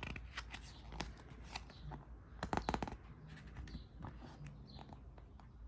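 Handling of a paper booklet and box-set packaging: light rustling with scattered small clicks and taps, and a denser flurry about two and a half seconds in.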